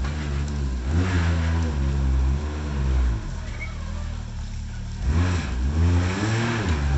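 Can-Am Maverick X3 side-by-side's three-cylinder turbo engine revving up and down under load as it crawls over rocks, in two spells of throttle with a lower, steadier stretch about halfway through.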